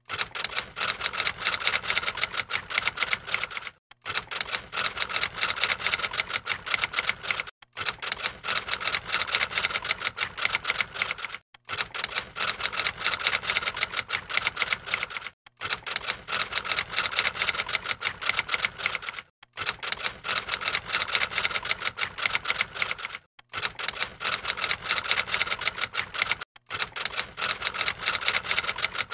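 Typewriter keys clacking in rapid runs, broken by brief silent pauses about every four seconds, as text is typed out on screen.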